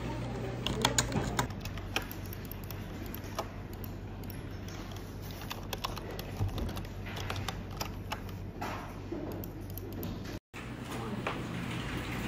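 Typing on a computer keyboard: irregular keystroke clicks, with a quick flurry about a second in, over a steady low hum.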